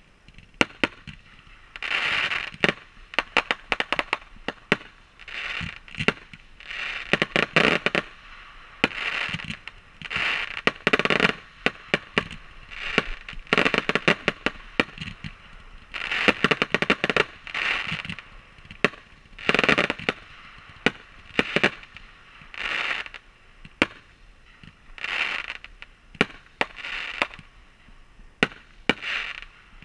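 Fireworks going off one after another: a run of short hissing rushes with sharp cracks and pops, one every second or two.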